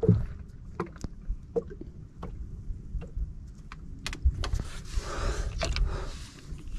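Water lapping against the hull of a small fishing boat, with a low wind rumble and scattered light clicks. About two-thirds of the way through comes a louder rustling stretch as the fishing rod is handled and picked up.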